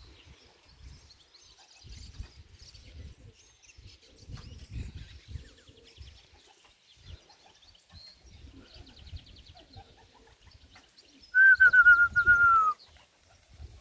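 Wind buffeting the microphone in gusts, with small birds' trilling songs in the background. Near the end comes a loud whistle about a second long, falling slightly in pitch.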